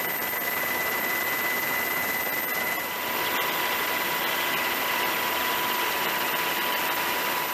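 Boat engine running steadily with the rush of water and wind, an even noise carrying a faint high whine that drops in pitch about three seconds in.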